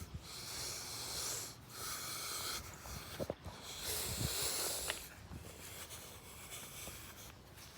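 A person breathing heavily close to the microphone, breaths coming about once a second, with a few light handling knocks near the middle.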